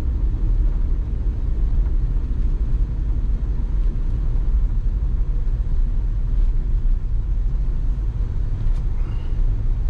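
GMC Yukon driving on a snow-covered, unplowed road, heard from inside the cabin: a steady low rumble of engine and tyres.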